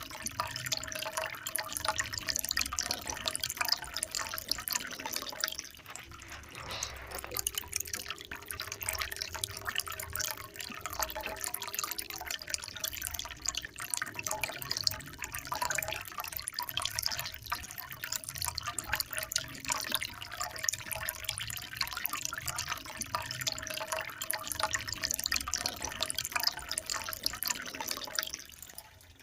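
Water trickling and splashing in a steady, dense patter of small drops, briefly quieter about six seconds in.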